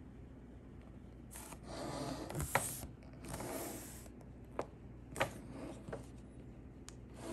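Handling noise from a handheld ICOM IC-R30 radio receiver being gripped and fingered: rough rubbing and scraping of skin against the casing in a few stretches, with several sharp single clicks as its keys are pressed.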